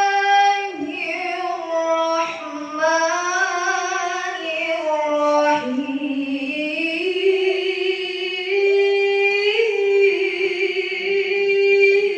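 A female voice reciting Quran verses in the melodic tilawah style, unaccompanied: long held notes with wavering ornaments that glide up and down between phrases.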